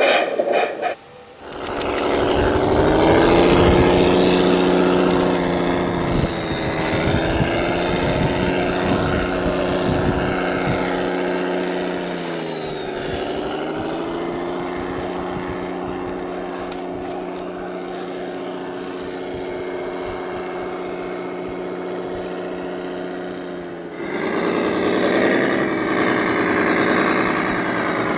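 Radio-controlled construction vehicle running with a steady engine note, which dips briefly in pitch about halfway through and then recovers. Near the end a different, rougher engine sound takes over.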